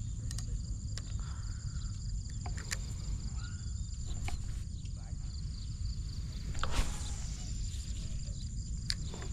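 Insects trilling steadily on a high pitch over a constant low rumble, with a few scattered clicks and a louder rustling swish about seven seconds in.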